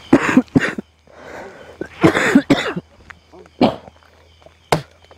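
A man coughing and making throaty grunts in short bursts: a cluster right at the start, another about two seconds in, then a few single sharp ones later.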